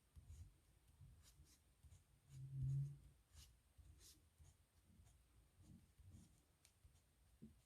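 Faint scratching and tapping of a pen on paper as characters are written, in short separate strokes. A brief low hum comes about two and a half seconds in.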